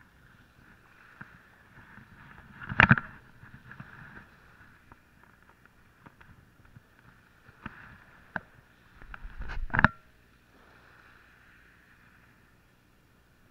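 Handling noise close to the microphone as a spinning rod and reel are worked: rubbing and small clicks, with two loud knocks, about three seconds in and again near ten seconds.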